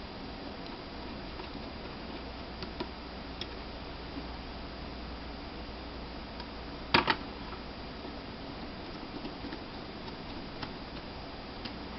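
Faint scattered ticks and clicks of small screws being driven with a small Phillips screwdriver into a laptop hard drive's case, with one sharp double click about seven seconds in, over a steady low hum.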